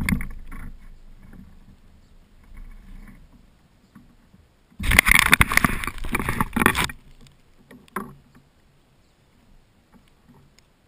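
Handling noise from a hand on the kayak-mounted camera: about two seconds of loud rubbing and knocking against the camera in the middle. Scattered lighter knocks of gear come before and after, including a sharper knock at the start and another a second after the rubbing stops.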